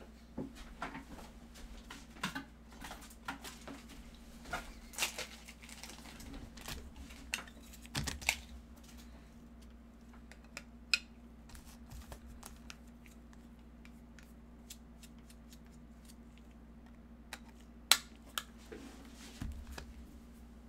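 Scattered sharp clicks, taps and light crinkling from trading cards and their packaging being handled, over a steady low hum. The clicks are busiest in the first half, and one loud click comes near the end.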